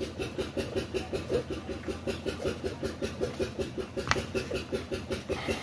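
An engine running steadily with an even beat of about five pulses a second, with a brief sharp click about four seconds in.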